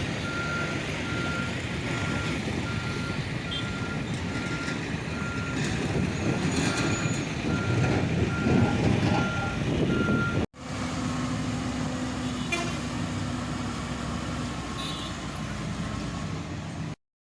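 A heavy truck or construction vehicle's reversing alarm beeping steadily, about once a second, over the rumble of its diesel engine. After a sudden cut about ten seconds in, the engine runs on with a steady hum.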